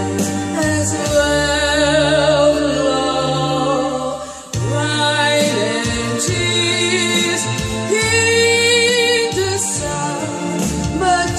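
A song: a solo voice singing with vibrato over instrumental accompaniment, holding a long note near the end, with a brief drop in loudness about four seconds in.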